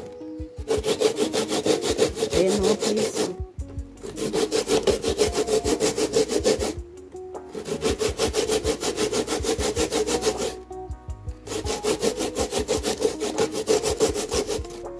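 Coconut flesh being grated by hand on a metal hand grater: quick rasping strokes in four long runs, broken by three short pauses.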